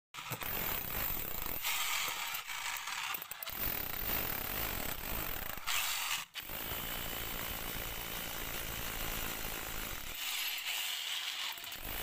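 Electric jackhammer with a chisel bit hammering and breaking up concrete. It comes in short clips, with a brief cut about six seconds in. Near the end the tool drills holes into concrete.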